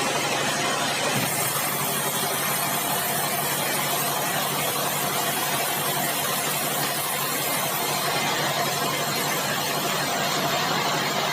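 Sawmill machinery running with a steady engine-like hum. A higher hiss comes in about a second in and fades toward the end.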